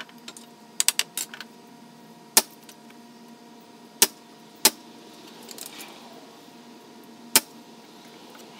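Hitachi (Metabo HPT) pneumatic finish nailer driving nails into wooden door trim: four sharp shots, the middle two close together. A few lighter clicks come about a second in.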